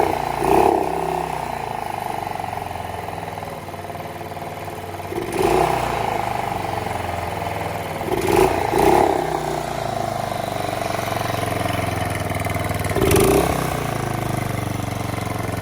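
Outboard boat motor running out of the water, its note surging now and then and sounding like it's missing. The mechanic puts the miss down to the motor's rev limiter, not a fault. The motor has been running since its missing Welch plug was fitted back.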